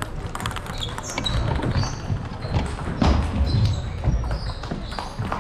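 Table tennis balls clicking off bats and tables, many of them at once and out of step, with murmured voices in the background. A few short high squeaks are heard among the clicks.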